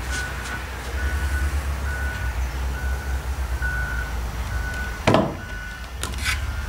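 Reversing alarm beeping at an even pace, about one high-pitched beep a second, over a low rumble. About five seconds in comes a sharp knock, the loudest sound here, followed a second later by two lighter clicks.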